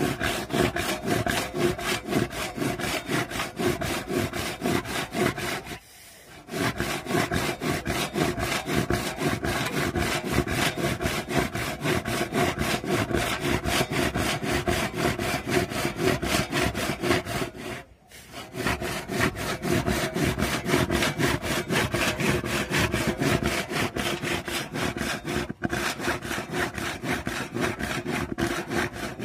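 Handsaw cutting across a thick, weathered wooden plank with quick back-and-forth strokes, pausing briefly about six seconds in and again around eighteen seconds.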